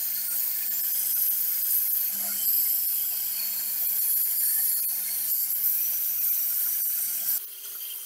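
A power tool working steel: a steady, high hiss over a low motor hum. It cuts off abruptly near the end and gives way to a quieter sound with a higher hum.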